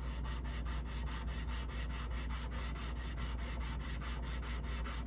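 Landis leather splitter's steel blade being rubbed back and forth on sandpaper to flatten and sharpen its edge: even scraping strokes, about four or five a second, over a steady low hum.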